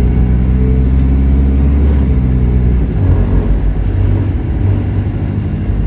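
Bus engine running under load as the bus drives, heard from inside the passenger saloon, its note shifting about three seconds in.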